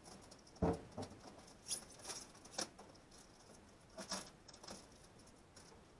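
A single sharp thump, then a few light clicks and scratchy rustles: objects and materials being handled during work.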